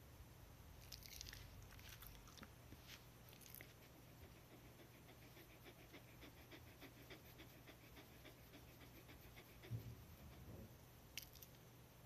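Black-and-tan Shiba Inu panting quickly and evenly, faint and close, with a few small clicks before it and a soft thump near the end.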